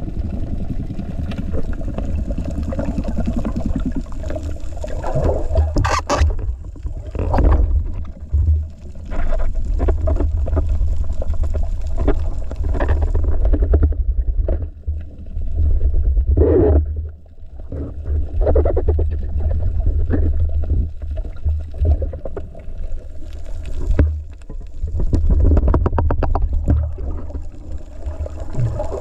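Underwater noise on a diver's action camera: a steady low rumble of water moving past the housing, with scattered sharp clicks and knocks and short stretches of rapid fluttering.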